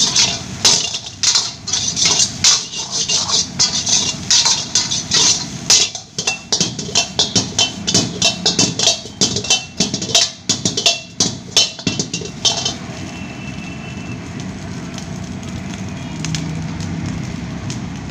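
A metal spatula strikes a wok in rapid, irregular clangs while fried rice is being tossed. The clanging stops about twelve seconds in, leaving a steady rushing noise.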